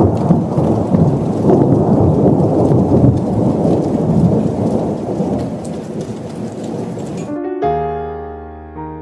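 Heavy rain with rolling thunder, a dense rumbling rush that cuts off abruptly about seven seconds in. Piano notes then begin.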